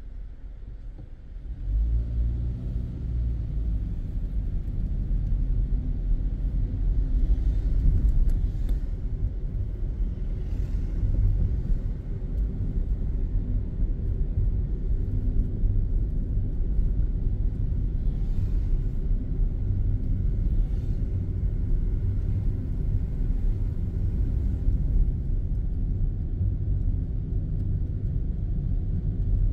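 Car driving on a city street: a steady low rumble of engine and road noise that gets louder about two seconds in as the car gets moving, with a few faint whooshes over it.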